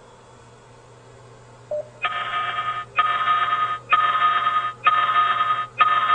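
Informacast alert warning tone playing over a Cisco IP phone: a buzzy beeping tone, each beep close to a second long, repeating about once a second from about two seconds in.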